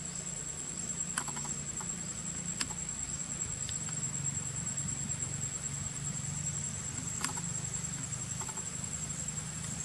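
Steady high-pitched insect drone over a low background hum, with a few short sharp clicks about a second in, two and a half seconds in and again near seven seconds.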